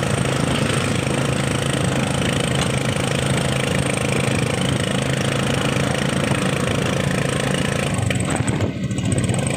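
Motorcycle engine of a Philippine tricycle running steadily while under way, heard from the sidecar with road and wind noise. It eases briefly near the end.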